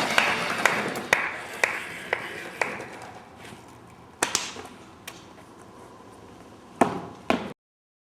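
A run of sharp pinging clicks, about two a second and growing fainter, over a dying noise. A few scattered clicks follow, the last two loudest, and then the sound cuts off abruptly.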